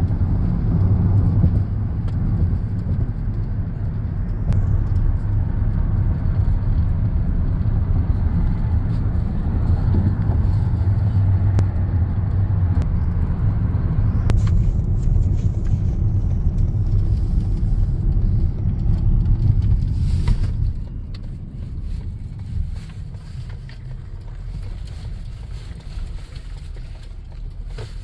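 Car driving, heard as a steady low engine and road rumble. About twenty seconds in the rumble drops to a noticeably quieter steady hum.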